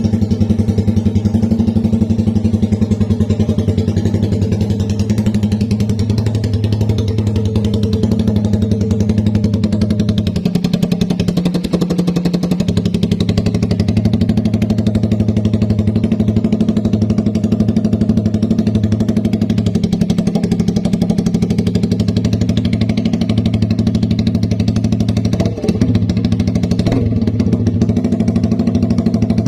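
Engine running loud and steady through nothing but a bare elbow exhaust pipe, with no muffler fitted.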